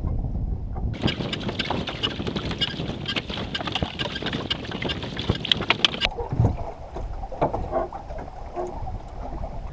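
Wind on the microphone and water slapping and splashing around a small wooden boat on a choppy sea, with many small crackles and knocks. The sound changes abruptly about a second in, gets louder and hissier, then drops back quieter about six seconds in.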